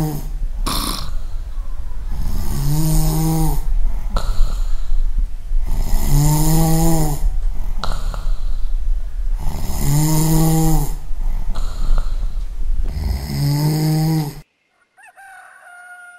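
An elderly woman snoring loudly in bed: four long, droning snores about every four seconds, with hissing breaths between, cut off abruptly near the end.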